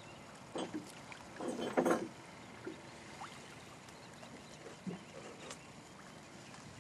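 Water lapping against a small boat on rippled water, with a few short splashes, the loudest about two seconds in.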